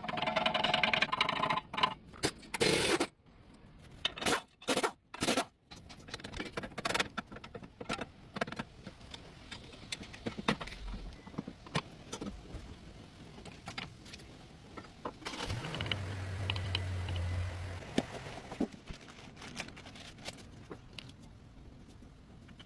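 Metal tools and car parts clinking, scraping and clattering during work on a CV axle, with a steady low hum for about two seconds past the middle.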